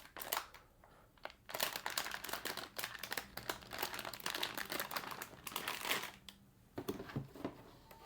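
Packaging crinkling and rustling as small parts are handled: a brief burst, a lull of about a second, then a longer stretch that dies down about six seconds in.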